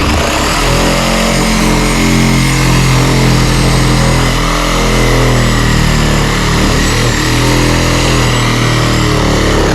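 Engine of a vehicle or machine throttled up suddenly and held at high revs, loud and steady, with a faint high whine over it; it eases off near the end.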